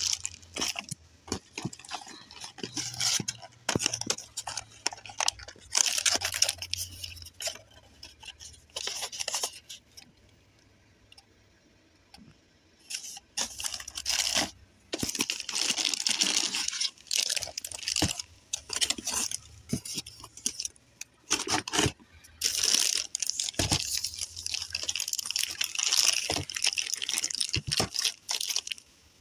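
Clear plastic packaging bags crinkling and rustling in repeated bursts as they are handled, with a quiet pause about ten seconds in.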